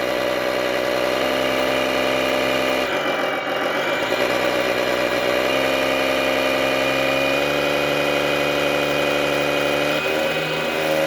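Sound module of an RC wheel loader playing a simulated heavy-machine engine through its speaker. It runs steadily, its pitch stepping up and down several times as the throttle is worked.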